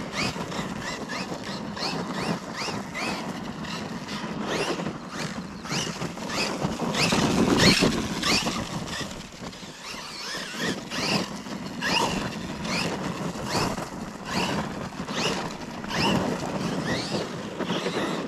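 Losi LMT RC monster truck's brushless electric motor whining in short rising bursts as the throttle is blipped, over tyres crunching and sliding on loose gravel; loudest about seven or eight seconds in.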